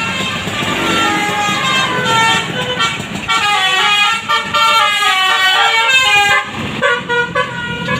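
Bus 'basuri' (telolet) musical air horn playing a fast melody, several notes sounding together and stepping quickly from pitch to pitch, with a short break about six and a half seconds in, over a bus engine running.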